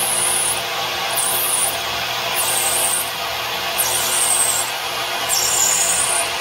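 Small CNC lathe turning plastic stock: the spindle runs with a steady rushing noise, and a high hiss from the cutting comes and goes about every second and a half.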